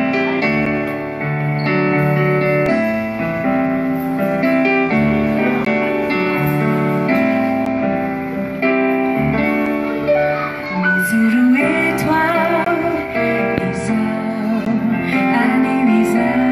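Live band playing a Malagasy worship song: held keyboard chords over drums and guitar, with a woman's voice singing over the band, clearest from about two-thirds of the way in.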